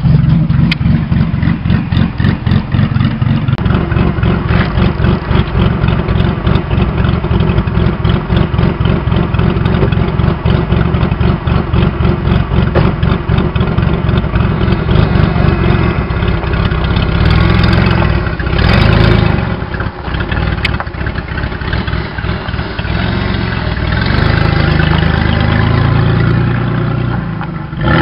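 1998 Mercury Sable's engine idling loudly through its modified exhaust with an even pulsing beat, then revving up and pulling away, the sound swelling twice in the last third.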